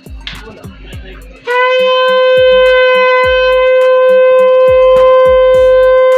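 Conch shell (shankh) blown in one long, steady, loud blast starting about a second and a half in, over a steady rhythm of beats and clinks.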